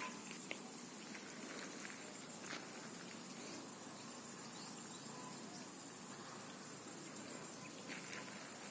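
Faint steady chirring of insects such as crickets over a low outdoor hiss, with a few soft clicks.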